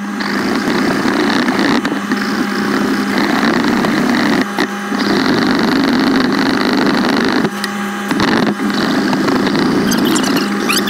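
Hand sanding with 400-grit paper on a kitchen knife's stainless steel bolster: a steady rasping scrape with short breaks between strokes, over a constant low hum.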